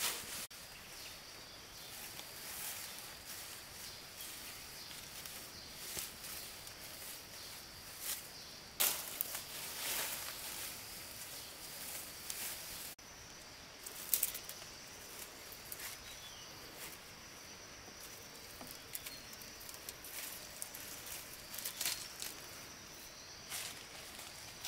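Outdoor ambience with a steady high hiss and scattered brief rustles and crackles, loudest about a third and halfway through.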